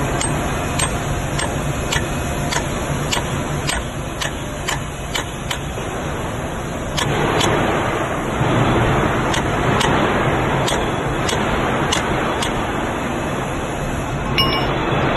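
Hammer striking the steel top plate of a bearing assembly in short sharp taps, about two a second for the first seven seconds, then more scattered. Under it runs steady workshop machinery noise that gets louder about seven seconds in.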